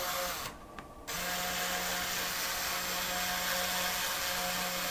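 A small LEGO 9V electric motor whirs steadily, powered straight from a 9V battery box's output connector. It cuts out about half a second in and starts again about a second in, as the contact is broken and made again.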